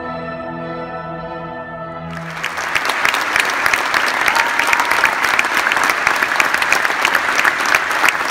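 A symphony orchestra holds its final chord, which stops about two seconds in as a large arena audience breaks into loud, sustained applause.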